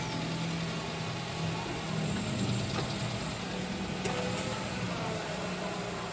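2018 Nissan Rogue's engine idling steadily with a low, even hum.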